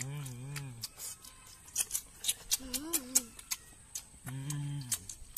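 Boys eating cooked octopus: wet chewing and lip-smacking clicks throughout, with three short hummed "mmm" sounds of enjoyment.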